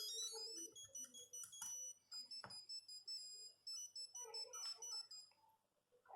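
Nokia 8210 mobile phone playing one of its monophonic ringtones: a quick run of high beeping notes, then a short melody of steady beeps that stops a little before the end.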